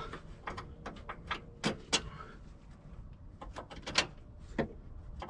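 Needle-nose pliers clicking and scraping on steel while spreading a new cotter pin on a truck's cab lift cylinder mount: a string of irregular sharp metal clicks, the loudest about two seconds in and again about four seconds in.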